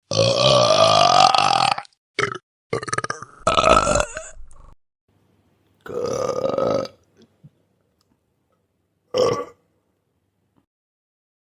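A string of about five separate human burps with silent gaps between them: the first long, with a rising pitch, and the last short.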